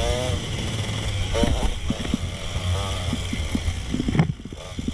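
Dirt bike engine revving up and down in quick surges, sped up to double speed so the revs sound higher and faster than normal. The engine eases off briefly near the end before picking up again.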